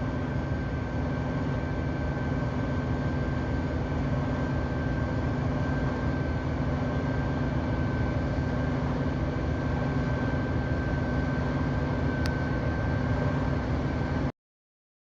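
Combine harvester running steadily while harvesting corn: a constant machine hum with a thin steady whine over it, and one faint click about twelve seconds in. The sound cuts off suddenly near the end.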